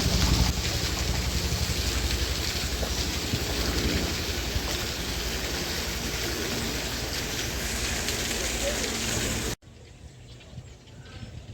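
Steady rushing hiss of heavy rain, cutting off abruptly about nine and a half seconds in, leaving a much quieter background.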